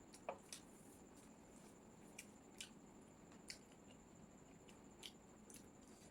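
Faint chewing of chowmein noodles and chilli chicken: scattered soft wet mouth clicks, one or two a second, over a faint steady high-pitched whine.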